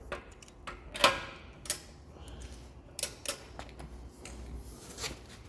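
A few separate short clicks and knocks of tools and parts being handled while work on the car's wheels gets under way, the sharpest about a second in, over a low background hum.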